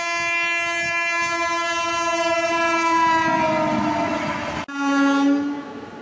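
A passing train's horn blows long and steady, then drops in pitch as the train goes by, while the rumble of the wheels swells. After a sudden cut, a second train's horn gives a short blast over quieter running noise.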